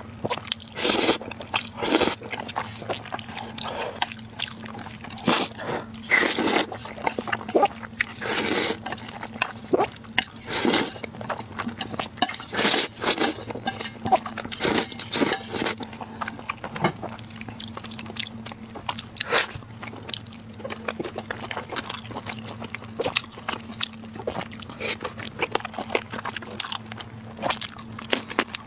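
Close-miked slurping and wet chewing of spicy noodles. There are long slurps in the first half, then shorter chewing smacks, over a faint steady low hum.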